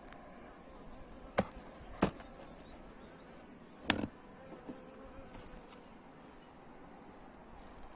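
Honeybees buzzing in a steady hum, broken by three sharp knocks, the loudest about four seconds in.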